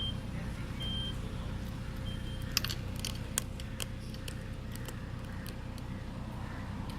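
Mazda CX-5 aftermarket power tailgate in operation: its warning buzzer gives short high beeps about once a second, stopping about two seconds in, followed by a quick cluster of sharp clicks. A steady low hum runs underneath.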